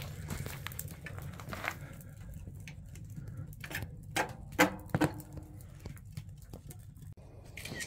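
Wood fire crackling in a small wood stove: scattered sharp pops and ticks, with a few louder pops about halfway through, over a steady low rumble.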